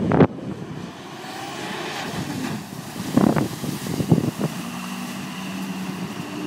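Ford F-250 Super Duty pickup driving through a shallow stream, its tyres splashing water, then pulling out onto the dirt track with its engine running steadily. A few sudden loud bursts come at the start and about three and four seconds in.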